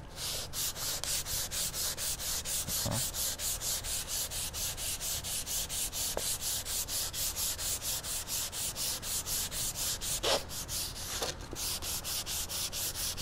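Hand sanding of a pine board with sandpaper wrapped around a foam block, pushed back and forth in quick, even strokes of about four a second, each a scratchy rasp. The sanding is taking a dirt stain off the pine surface.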